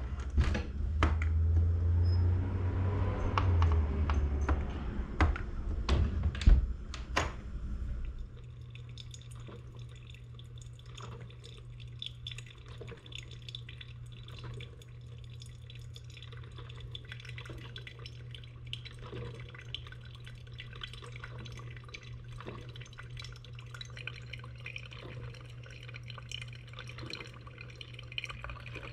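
Water dripping, with small clinks over a steady low hum. For the first eight seconds or so there is a louder low rumble with several sharp knocks.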